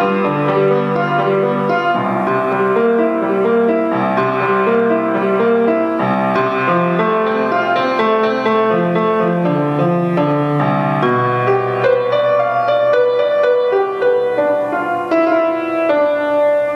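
Solo grand piano playing a classical piece: a continuous flow of notes over held low bass notes.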